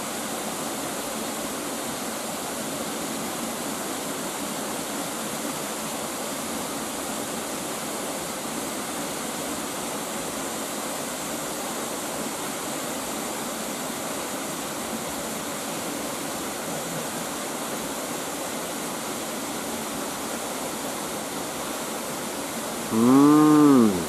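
Steady rush of a tall, three-tiered waterfall coming down with strong force. Near the end, a man's short voiced exclamation, rising then falling in pitch, louder than the water.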